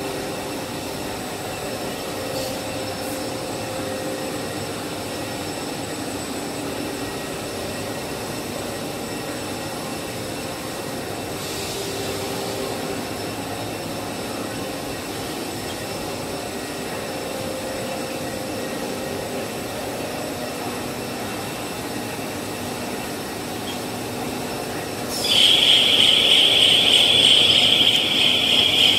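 WT65/65/100/65/65-2400 five-screw, seven-layer cast stretch film line running: a steady machine hum with a few held tones from the rollers and winding station. About 25 seconds in, a much louder high-pitched hiss cuts in after a brief falling whine, during the winder's automatic roll change.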